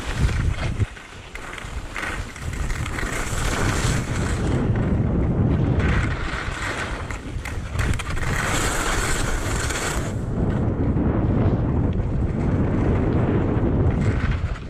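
Wind buffeting the microphone of a skier heading downhill, with the hiss and scrape of skis on snow swelling and fading several times.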